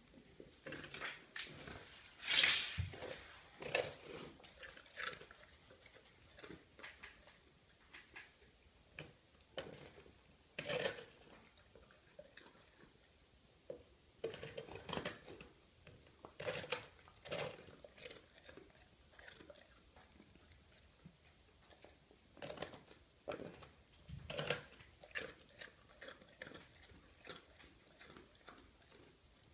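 Cane Corso chewing and gnawing a crusty piece of bread: crunching bites in irregular clusters with quiet gaps between, the loudest about two seconds in.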